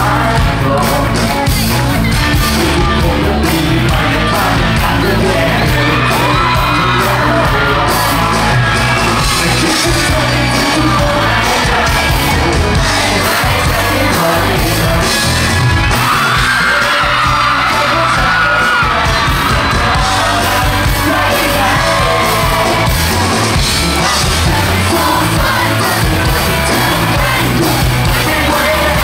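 Live band with bass and electric guitars playing a pop song while a male lead singer sings into a microphone.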